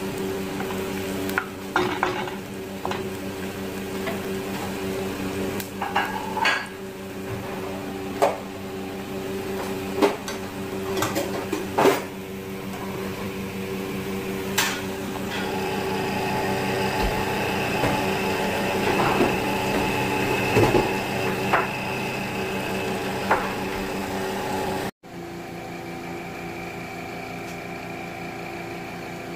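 Wooden spoon stirring and scraping chopped onion and garlic frying in oil in a nonstick pot, with sharp knocks of the spoon against the pot and a frying sizzle that grows louder in the second half. A steady hum runs underneath, and the sound changes abruptly near the end at an edit.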